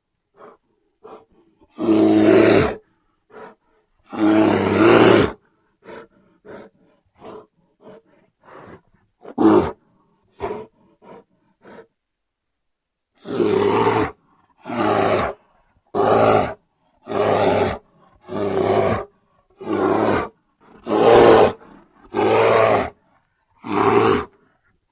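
Grizzly bear roar sound effects: two long, loud roars, then a run of short, fainter grunts and huffs. In the second half comes a series of about ten roars, each about a second long and spaced about a second apart.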